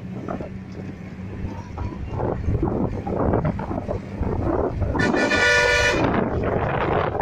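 A vehicle horn sounds once, for about a second, about five seconds in, over the steady noise of a moving vehicle.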